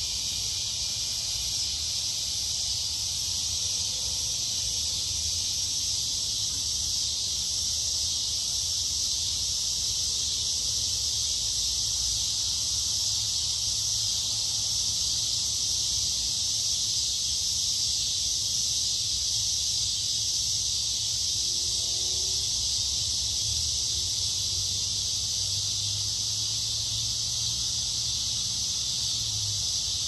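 Loud chorus of summer insects, one steady high-pitched buzz that does not change, with a low rumble underneath.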